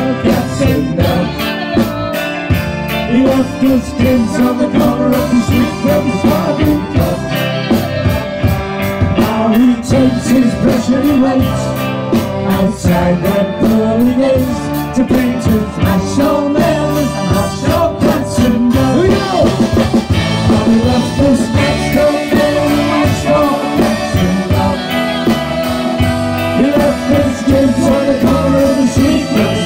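Live band playing: electric bass, keyboards and drums with a steady beat, at full volume.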